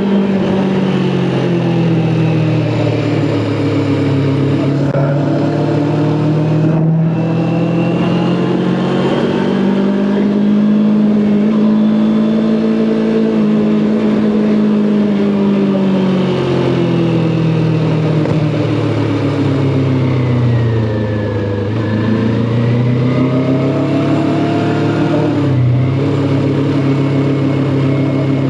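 Kawasaki Ninja 400's 399 cc parallel-twin engine heard while riding, its note falling and rising several times with the throttle, with brief breaks in the note about a quarter of the way in and again near the end.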